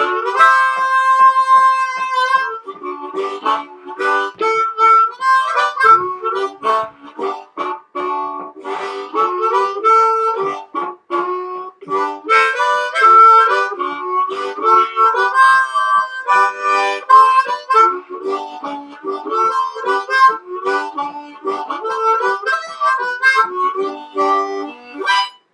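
Harmonica playing a blues: a chord held for about two seconds, then quick runs of changing notes and chords, stopping just at the end.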